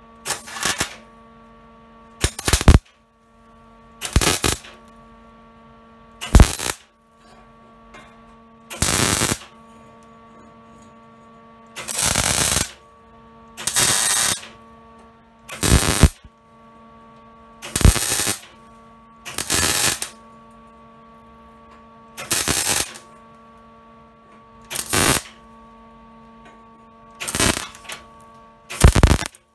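MIG welder laying short crackling bursts of weld, about fourteen of them roughly every two seconds, each half a second to a second long, to fill holes and cracks in a steel tube frame. A steady electrical hum from the welder runs underneath between the bursts.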